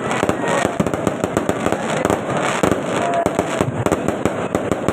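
Fireworks going off in dense, rapid volleys: a continuous run of bangs and crackles packed close together.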